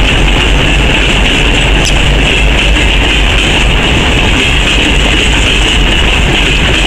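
Broad-gauge open coal wagons of a freight train rolling past: a continuous rumble of wheels on the rails, with a steady high hiss above it.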